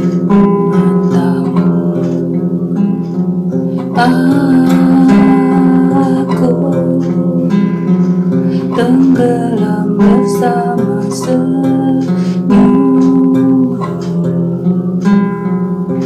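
Acoustic guitar played as accompaniment while a voice sings a slow song in Indonesian; the singing comes in more strongly about four seconds in.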